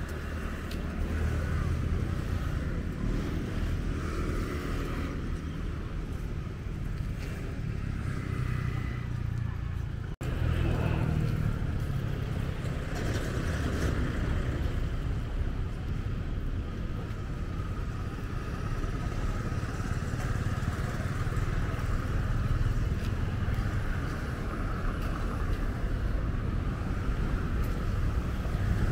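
Street ambience of road traffic with motorbikes going by, a steady low rumble throughout. It cuts out for an instant about ten seconds in.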